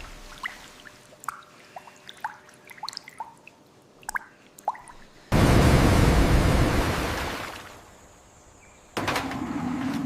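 Scattered single water drips for the first few seconds, then a sudden loud rush of noise about five seconds in that fades away over two seconds, and another sudden loud noise near the end.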